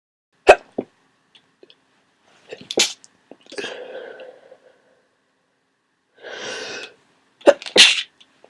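A person with a congested head cold sneezing wetly, three sharp sneezes, the first the loudest. Softer breathy sounds come between them, with a drawn-out breath just before the last sneeze.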